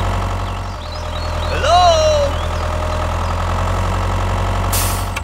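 Tractor engine idling steadily with a low, even hum. About two seconds in, a short voice-like call rises and then falls.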